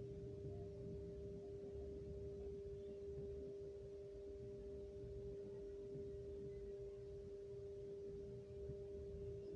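A faint, steady hum held at one constant pitch, with a weaker higher overtone and a low rumble underneath.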